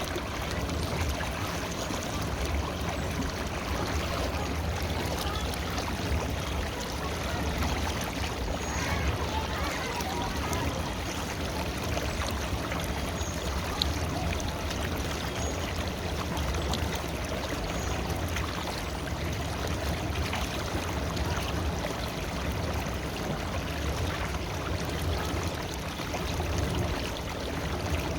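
A river's water flowing steadily, a continuous rushing with light trickling.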